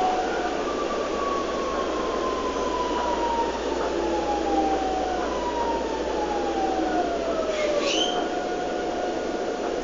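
Inside an Alstom Series 4000 electric train: the motor whine slides down in pitch in several steps over the steady rumble of the car running on the rails, as the train slows along a platform. A brief high squeal comes just before the end, then the whine holds steady.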